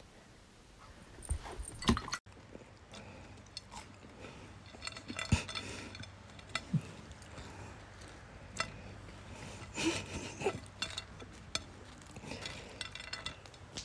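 A dinner plate clinking and tapping now and then as it is handled, in a series of short, irregular clicks and knocks.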